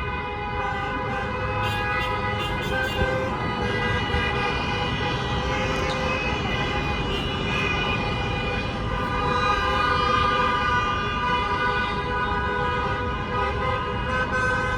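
Many car horns honking at once from a procession of cars, their held tones overlapping into a steady, continuous din, over the rumble of traffic.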